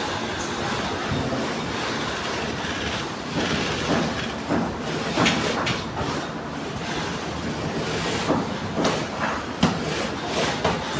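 Industrial sewing machine running in bursts, a steady mechanical clatter broken by irregular sharp knocks.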